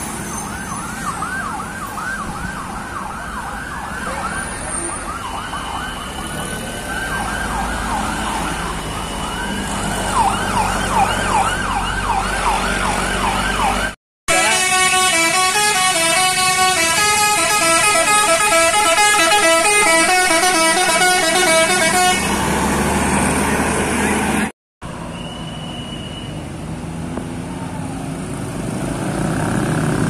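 Tour bus telolet horns: first a fast, repeated warbling call sweeping up and down in pitch, then, louder, a multi-tone horn playing a stepping melody for about eight seconds. Near the end only road traffic and engines are heard, growing louder as vehicles approach.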